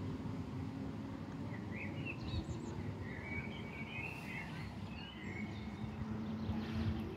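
A few birds chirping in short bursts over a steady low outdoor rumble of wind and distant traffic.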